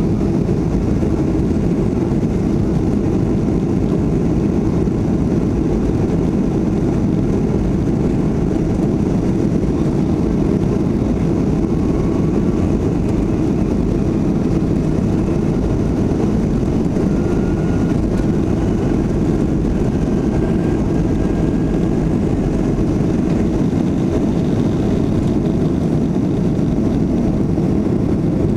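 Boeing 737-300 airliner heard from inside the cabin over the wing: its CFM56 jet engines and the airframe make a steady low rumble as it lines up and runs down the runway for takeoff.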